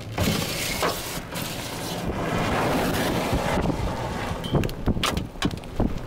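Wind buffeting the microphone over a vehicle's low rumble during a thunderstorm, swelling in the middle, with several sharp knocks in the second half.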